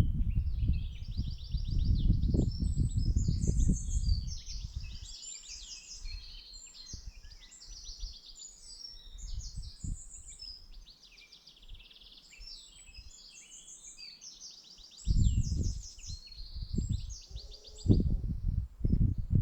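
A songbird singing a long, unbroken song of quick, high trills and rattles. A low rumbling noise comes under it for the first few seconds and again near the end.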